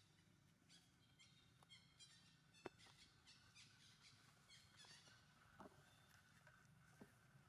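Near silence with faint high-pitched chirping, short notes repeated quickly over the first few seconds, and a few soft clicks.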